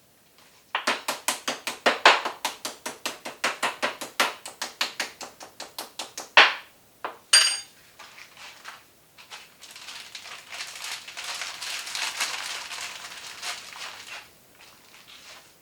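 Meat tenderizer beating steak: a fast run of sharp strikes, about five a second, for several seconds, with a brief metallic clink just after. A softer, even rustling follows.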